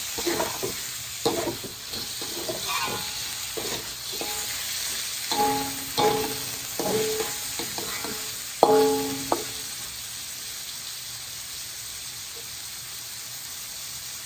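Chicken pieces sizzling in a hot pan as they are seared until the flesh turns white, stirred with a spatula that scrapes and clinks against the metal. About nine and a half seconds in the stirring stops and only a steady sizzle remains.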